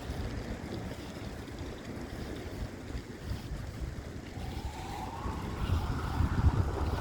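Wind buffeting a phone's microphone over a low street rumble, with a vehicle approaching and growing louder in the last couple of seconds.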